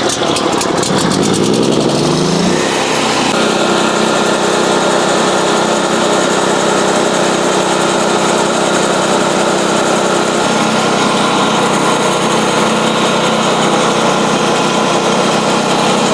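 Small petrol engine of a portable bandsaw sawmill, just started, revving up over the first two and a half seconds and then running steady at speed.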